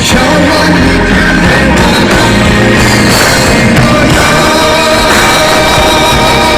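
Live concert music: a band playing with a singer's voice over it, loud and steady throughout.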